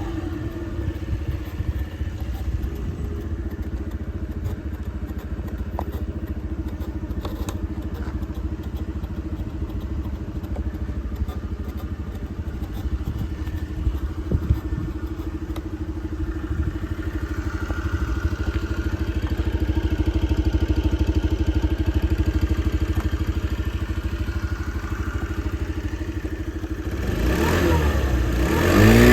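Honda Dio AF62 scooter's small single-cylinder engine idling steadily, then revved up and down near the end.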